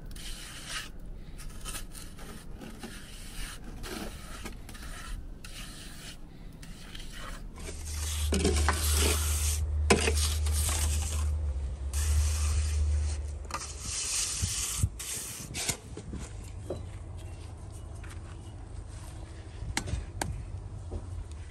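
Repeated rubbing and scraping strokes, with a louder low rumble for several seconds in the middle.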